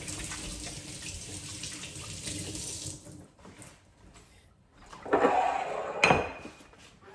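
Kitchen tap running water into the sink, then shut off about three seconds in. A short, louder clatter follows near the end.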